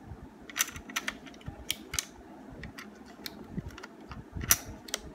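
Sharp plastic clicks and handling noise as batteries are pressed into a handheld infrared thermometer's battery compartment and its plastic battery cover is worked shut, with the loudest click about four and a half seconds in.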